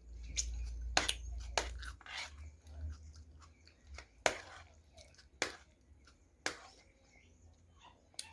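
A person chewing a mouthful of food close to the microphone, with sharp wet smacks and clicks coming irregularly about once a second. A low hum underneath stops about two seconds in.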